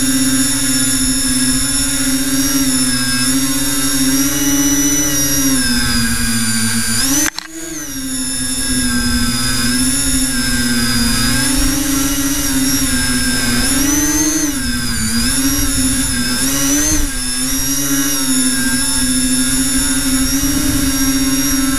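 Electric motors and propellers of an FPV multirotor drone whining steadily, heard through its onboard camera, the pitch rising and falling with the throttle. About seven seconds in the sound drops sharply as the throttle is cut, then builds back up, and it wavers up and down again in the second half.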